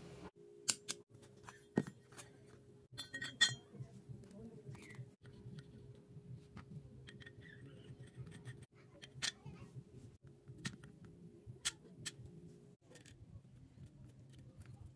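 Sharp metallic clinks and taps, irregular and of varying loudness, from tools and parts being handled on a Suzuki DR650's aluminium cylinder head and rocker cover. A steady low hum runs underneath and stops near the end.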